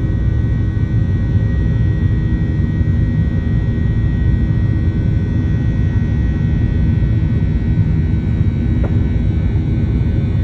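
Boeing 737-900's CFM56-7B jet engines at climb power just after takeoff, heard inside the cabin beside the engine: a loud, steady rumble with a few steady tones over it.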